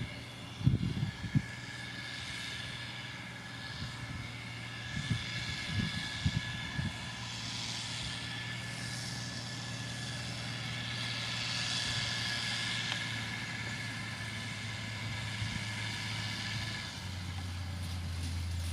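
Diesel engine of heavy road-building machinery running steadily, with a few short low thumps. The engine note steps down a little near the end.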